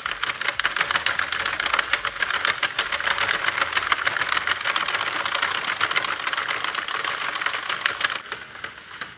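Sentro 48-needle knitting machine being hand-cranked, with a fast, steady stream of plastic clicking as the carriage runs round the needles knitting rows. The clicking stops shortly before the end.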